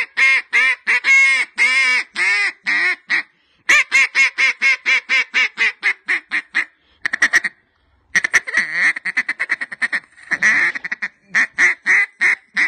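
Banded Lil' Bub single-reed duck call blown in a calling routine: series of loud quacks, some longer drawn notes and some fast runs of short quacks, with short breaks about three and eight seconds in.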